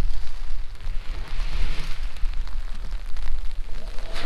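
Wind rumbling on the microphone over a steady hiss, with the 2009 Kia Sportage's engine faintly heard as it drives off along a wet dirt trail.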